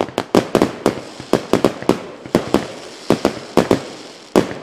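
Fireworks sound effect: a rapid, irregular string of sharp firecracker bangs, about five a second, with crackling between them.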